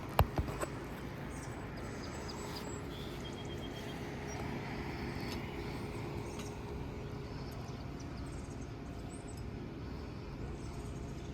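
Three sharp knocks in the first second, then steady outdoor background noise with a faint low hum and a few light ticks.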